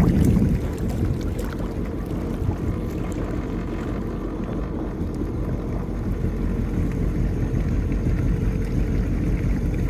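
Jet ski running on open water: a steady low rush of engine, water and wind, a little louder for the first half second.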